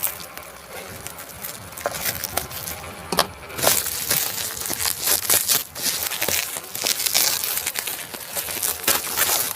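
Plastic packaging crinkling and tearing as it is pulled open by hand: irregular crackles, louder and busier from a little past the middle.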